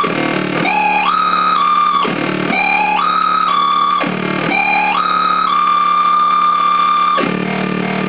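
Joystick-controlled synthesizer playing a buzzy tone that swoops down, then steps up in pitch and holds, in a figure repeating about every two seconds. The last high note is held longer before the sound drops to a lower, busier texture about seven seconds in.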